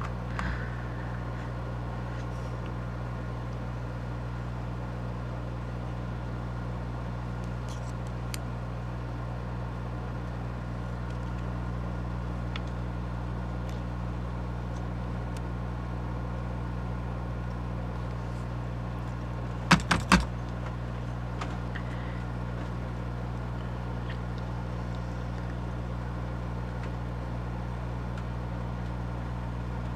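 Steady low background hum, with a few faint ticks and, about twenty seconds in, a quick cluster of sharp clicks from small parts being handled while the drawbar screw of a model locomotive is fitted.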